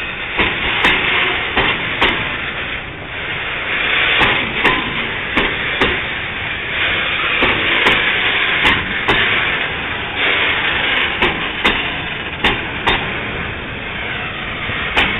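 Freight train rolling past at close range: a steady rushing noise of wheels on rails, broken by irregular sharp clanks and knocks a few times a second.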